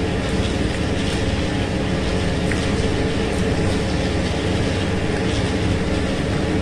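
A steady, unchanging machine-like hum and rush, with faint steady tones in the low-middle range and no distinct events.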